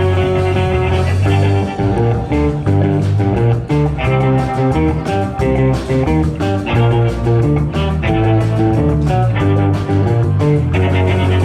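Live rock band playing an instrumental passage: electric guitar picking a quick run of notes over a steady bass guitar line.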